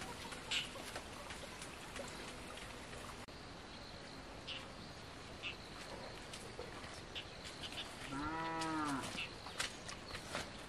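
Light footsteps on a muddy path over a steady rural background, with scattered faint clicks. About eight seconds in, a farm animal calls once for about a second, its pitch rising then falling.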